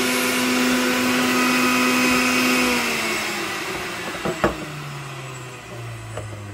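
Electric centrifugal juicer's motor running with a steady whirring hum, then switched off about three seconds in, its pitch sliding down as it spins down. A sharp click sounds about a second later, followed by a few fainter clicks.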